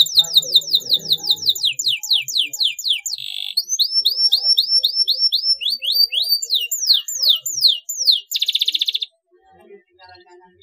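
Domestic canary singing: fast runs of repeated downward-sweeping whistles, about eight a second, changing to short upturned notes and buzzy trills. The song ends with a dense rapid trill and stops about nine seconds in.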